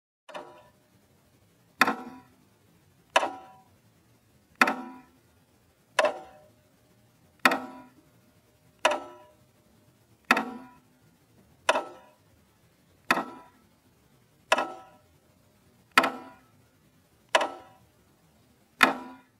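Slow, steady ticking like a clock, one sharp tick with a short ringing tail about every one and a half seconds, fourteen in all, the first one faint.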